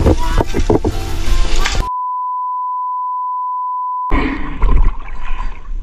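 Steady 1 kHz test-tone beep, the tone that goes with colour bars, held for about two seconds from about two seconds in and cut off abruptly. It sits between stretches of louder, busy outdoor sound.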